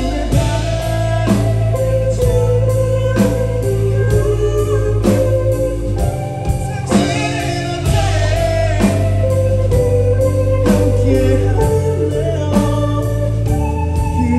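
A male singer singing a slow song live into a microphone over band accompaniment, with a sustained bass and a steady drum beat about once a second.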